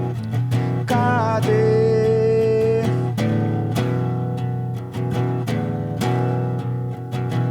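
A song: acoustic guitar strummed in a steady rhythm, with a voice sliding up into a long held sung note about a second in (the word 'cadê?').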